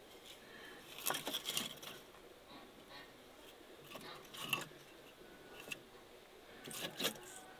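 Cut wooden branches knocking and scraping against each other as a hand shifts them in a stacked pile, in short clattery clusters: one about a second in, another around four and a half seconds, a single tap a little later, and a last cluster near the end.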